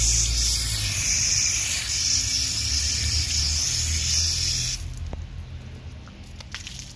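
Water from a hose spraying onto a power cutter's plastic air-filter part while it is rinsed clean: a steady, loud hiss that drops away suddenly about five seconds in, leaving a few drips and light splashes.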